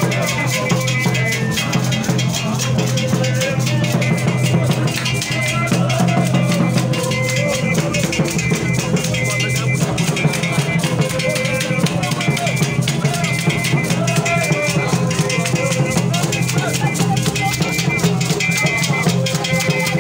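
Vodoun ceremonial music: drums and rattles playing a fast, steady rhythm, with voices singing over it.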